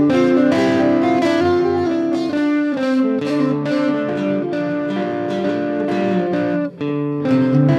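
Background music led by plucked guitar, notes picked in a steady rhythm over a sustained bass, with a brief drop-out near the end.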